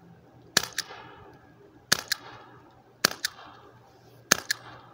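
Crosman CR357 CO2 air revolver firing steel BBs: four sharp shots about a second and a quarter apart. Each shot is followed a fraction of a second later by a second, fainter crack.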